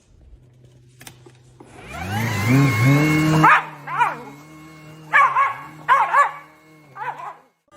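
A motor-driven appliance whirs up to speed with a rising whine and cuts off, and a dog then barks several times in short sharp barks.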